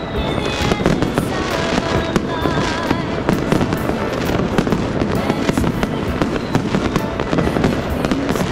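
Fireworks going off in dense, overlapping volleys of bangs and crackles with no pause.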